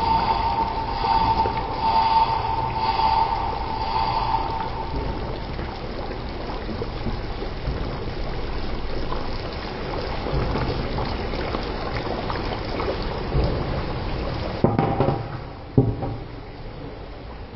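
Beef and potato curry simmering in a pan, a steady bubbling hiss, with a steady whine that fades out about five seconds in. Near the end, two sharp knocks as a glass lid is set down on the pan.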